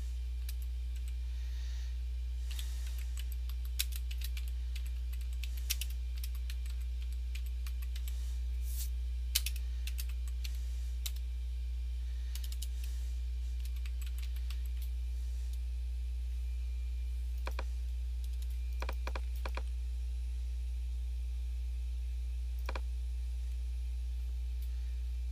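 Typing on a computer keyboard: scattered keystrokes in short irregular runs, over a steady low electrical hum.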